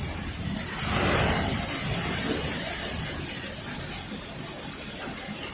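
Typhoon storm-surge waves and wind: a wave surges and breaks about a second in, its wash fading over the next few seconds, over steady rumbling wind.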